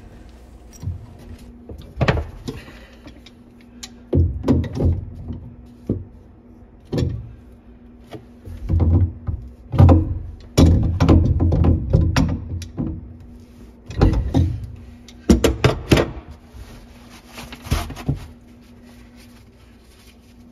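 Hands and channel-lock pliers tightening the slip nuts on a plastic sink P-trap: irregular plastic knocks, clicks and low thumps, heaviest in the middle stretch.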